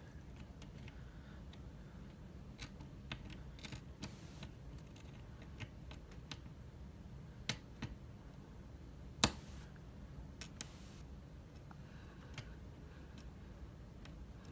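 Lock picking in an Abus C83 euro cylinder: scattered small metallic clicks and ticks as the pick works the pins against the tension tool, the loudest click about nine seconds in.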